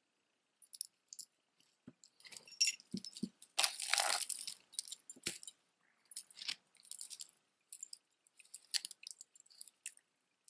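Metal costume-jewelry chains jingling and clinking as necklaces are handled and drawn out of a tangled pile, a run of small scattered clicks with a louder jangle about four seconds in.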